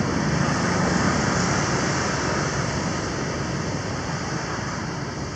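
Steady rushing background noise with a low hum underneath, easing off slightly toward the end.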